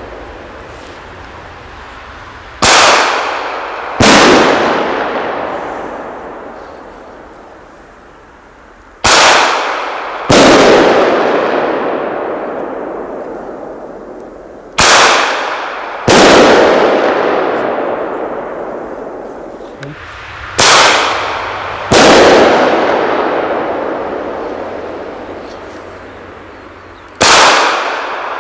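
15 mm Umarex bird banger cartridges fired from a blank-firing pistol: a sharp launch shot, then about a second and a half later the bang of the banger bursting in the air, followed by a long fading echo. This happens four times about six seconds apart, and a fifth launch shot comes near the end.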